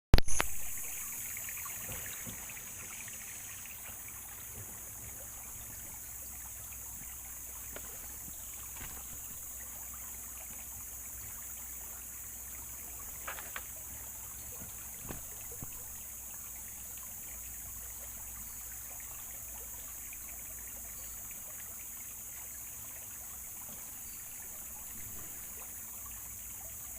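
Steady running water of a river with a constant high-pitched insect drone over it. A loud knock comes right at the start, and a few faint clicks come about halfway through.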